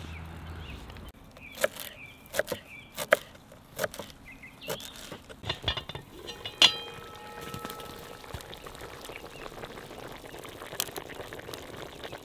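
Metal clinks and knocks of a cooking pot's lid and utensils, a dozen or so sharp taps, with one loud clank about six and a half seconds in that rings briefly.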